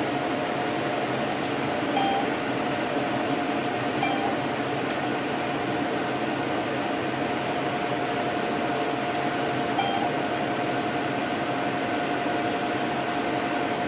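Palomar StarLux laser system running, its cooling fan making a steady hum with a constant tone. Short electronic beeps come three times: about two seconds in, about four seconds in, and near the ten-second mark.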